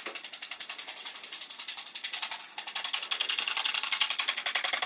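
Homemade reed-switch DC motor running, making a rapid, even clicking.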